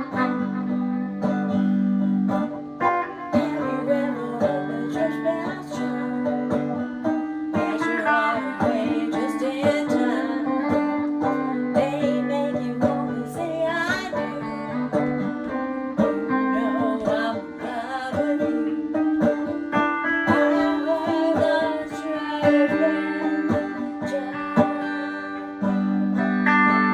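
Electric guitar and electrified banjo playing an instrumental piece together: held low notes that change every couple of seconds under quick picked notes.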